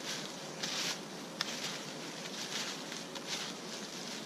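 Dry fallen leaves rustling as a wooden digging stick sweeps them aside, in a series of short, uneven strokes about two a second.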